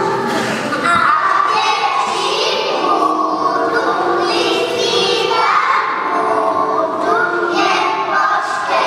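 Children singing a Christmas song together, in sustained notes that move from pitch to pitch.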